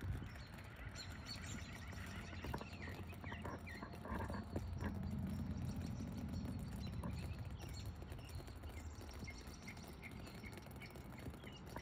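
Outdoor ambience: birds chirping here and there over a low rumble, with a few short knocks.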